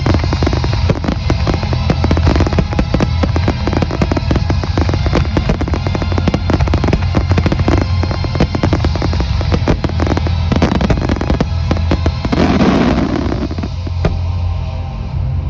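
Fireworks display: a dense run of rapid bangs and crackles that thins out in the last few seconds, with music playing underneath.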